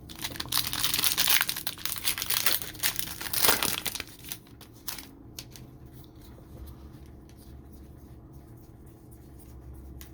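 Plastic-foil trading card pack wrapper being torn open and crinkled for about three seconds, ending in a sharp rip, followed by a few light handling clicks.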